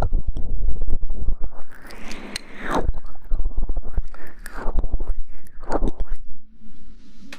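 Close-miked ASMR rustling and scraping: several swelling swishes, each about a second long, with crackling clicks through them. The sound stops a little before the end.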